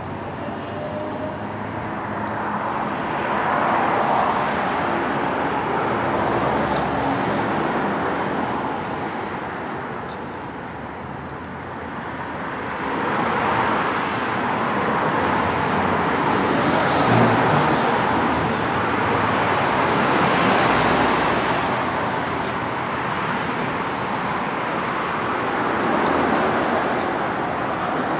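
Road traffic with cars passing one after another, the sound swelling and fading several times.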